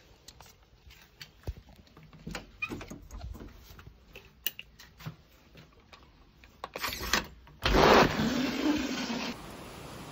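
Scattered knocks and rustles of umbrellas, bags and other stored things being handled, then a loud rushing, scraping noise for about a second and a half near the end, leaving a steady hiss.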